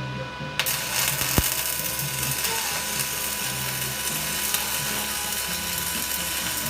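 Stick-welding arc laying 5/32-inch 350 rod onto a worn steel pin to build it back up: a steady crackling hiss that starts suddenly about half a second in.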